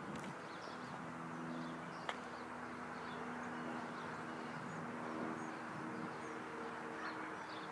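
Small birds chirping over a steady low hum, with a single click about two seconds in.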